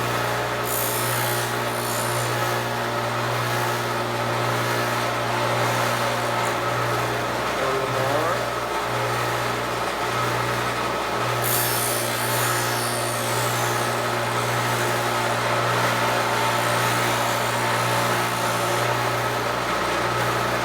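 Foley Belsaw 1055 Sharp All sharpening machine running with a steady motor hum while its wheel grinds the bevel of a knife clamped in a jig. The grinding hiss swells about a second in and again around halfway.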